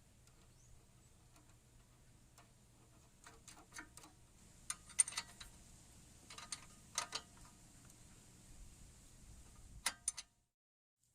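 Faint metallic clicks and clinks from hand tools and metal parts being handled, coming in small clusters a second or two apart, some with a short ring. Near the end it cuts off to silence.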